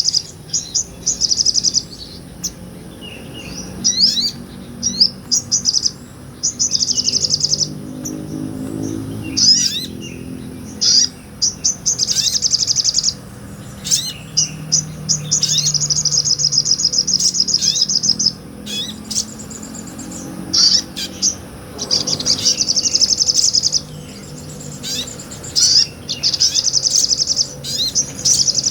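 A sogon (sogok ontong, a spiderhunter) singing busily: high, fast rattling trills lasting one to several seconds, broken by short sharp chirps and brief pauses. A faint low drone runs underneath.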